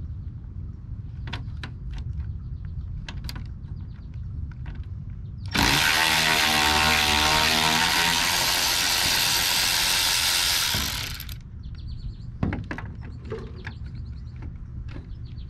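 A power tool runs loudly for about six seconds, starting about five seconds in, its pitch rising a little as it spins up, while working on the door-hinge bolts. Before and after it come scattered clicks and knocks of hand-tool work, with one sharper knock shortly after the tool stops.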